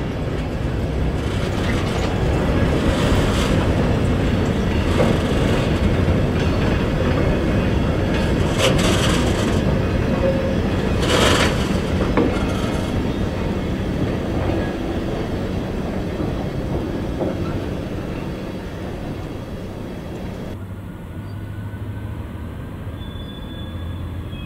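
Freight wagons rolling past, the wheels clattering and clanking over rail joints and points. The rumble slowly fades once the last wagon has gone by. About 20 seconds in, the sound changes abruptly to a steady low hum from the rail yard, with a few thin high tones.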